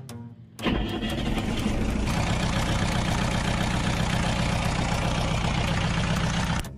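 Perkins marine diesel engine starting up about half a second in, then running steadily at idle.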